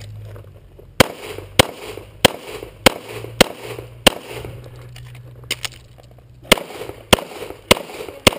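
Rapid pistol fire from an EAA/Tanfoglio Witness Elite Match in .40 S&W: six shots about half a second apart, a pause of roughly two seconds with two faint pops, then four more shots at the same pace.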